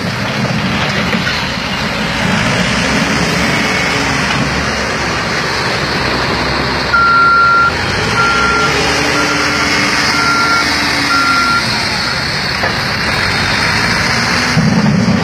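A heavy vehicle's engine running and revving up and down twice, with a reversing alarm beeping five times about halfway through as it backs up.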